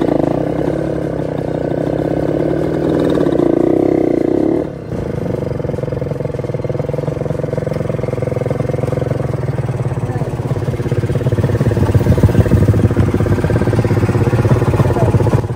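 Small motorcycle engine running as the bike rolls slowly, then idling steadily, with passing road traffic. The sound changes abruptly about five seconds in.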